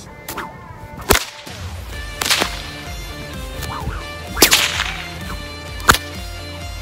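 A whip being cracked four times, sharp cracks spaced a second or two apart, the last one the loudest.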